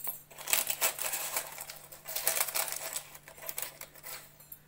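Rapid, light clicking and scraping of kitchen utensils, stopping shortly before the end.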